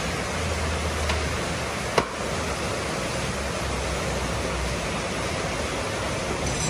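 Steady rushing background noise with a low hum, and a single sharp click about two seconds in.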